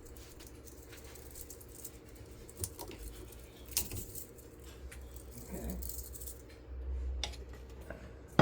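Scattered light metallic clicks and rattles as the stacked steel layers of a ceiling fan motor's core are worked and pried loose by hand, over a steady low hum.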